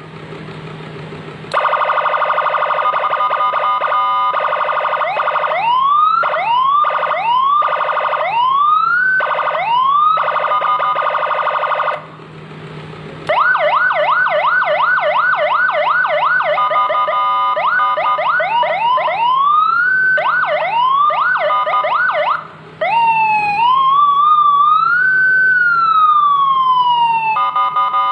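Electronic motorcycle siren cycling through its tones: a fast warble, then repeated rising whoops, quick yelps, and a slow rising and falling wail near the end. Short pauses separate the patterns.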